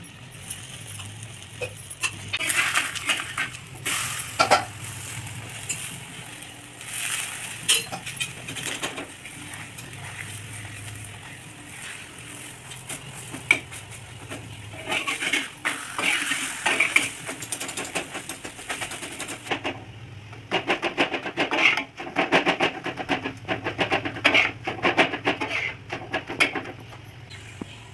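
Steel spatula scraping and clinking against an iron tawa as a batter paratha is flipped and pressed down in oil, with the oil sizzling. The scraping comes in bursts, densest and fastest in the last third.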